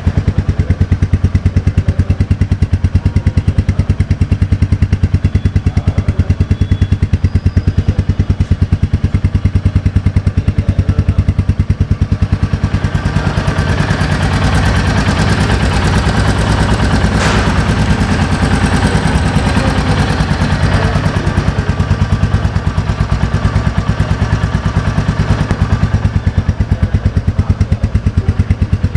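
Royal Enfield Meteor 350's single-cylinder J-series engine idling steadily through its stock silencer, an even, rapid beat of firing pulses. It runs smoothly, a sound the owner calls very refined. Its tone brightens a little in the middle.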